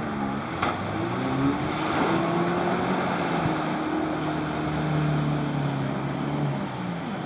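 First-generation Subaru Forester's flat-four engine pulling under load through a deep muddy bog hole, revs climbing over the first couple of seconds, then holding steady and easing off near the end, with water sloshing and splashing around the car.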